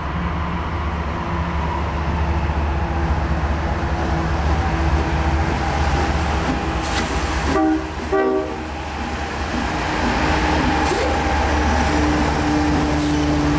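Diesel freight locomotive and train running with a steady low rumble, with a short horn blast in two quick parts a little past halfway.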